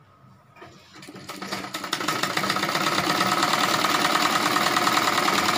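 Sewing machine starting up about half a second in, picking up speed over a second or so, then running fast and steady as it stitches the folded fabric waistband.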